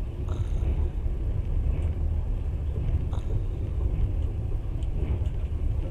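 Steady low rumble of a moving passenger train heard from inside the carriage, with a couple of faint clicks.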